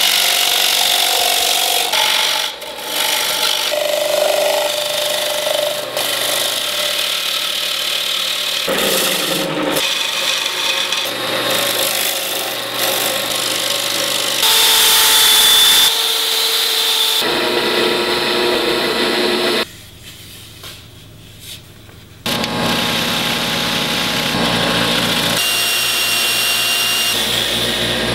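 Bowl gouge cutting a spinning maple bowl on a wood lathe: a dense scraping, shearing noise of the tool edge peeling shavings off the wood. The sound changes abruptly several times as the clips change, with a noticeably quieter stretch about two-thirds of the way through.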